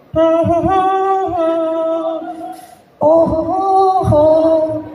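A man's voice singing a slow, wordless tune in two long held phrases, each moving in small steps of pitch, with a short break between them.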